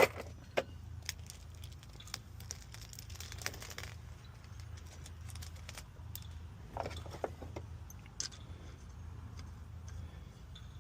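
Handling sounds from an AC manifold gauge set being put together: rustling of plastic packaging and small clicks and clinks of hose fittings, over a steady low hum.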